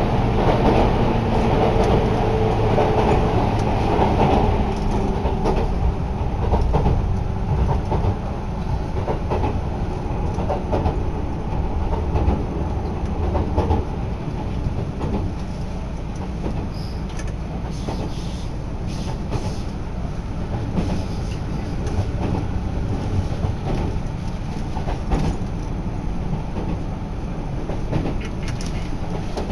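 Running noise of a JR Chuo Line local electric train heard from inside the carriage: a steady low rumble of wheels on rail with light clickety-clack. A faint steady tone fades out over the first few seconds.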